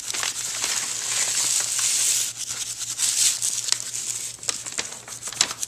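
Dry material being crinkled and rustled as it is handled and gathered up, with scattered small crackles and clicks in the last couple of seconds.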